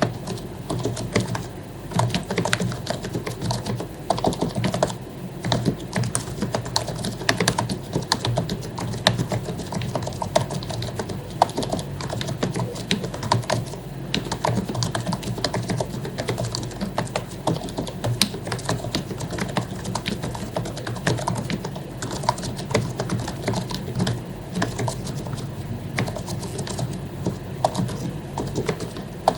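Continuous typing on an HP zpr110U1 membrane keyboard, its keycaps lubricated: a steady, fast, irregular run of soft key clicks.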